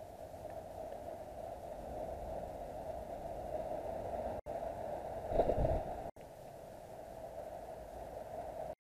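Steady hum and hiss of a trail camera's own recording noise, with a brief low rumble about five seconds in. Two short dropouts mark where clips are joined.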